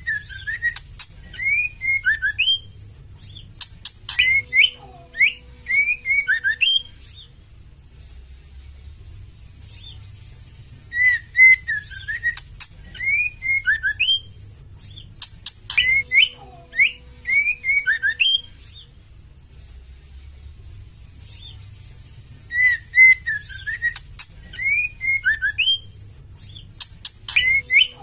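Female white-rumped shama (murai batu) calling: phrases of short whistled notes mixed with harsh chattering and clicks, each lasting several seconds and separated by pauses of about four seconds. The same phrase repeats almost identically about every twelve seconds, a looped call used to stir male shamas into song.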